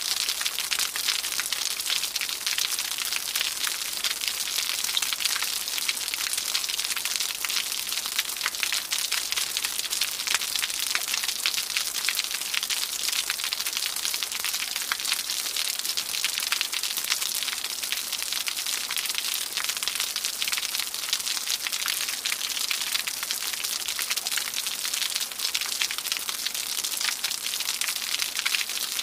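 Waterfall: falling water making a steady, even rushing hiss with a fine crackle, unchanging throughout.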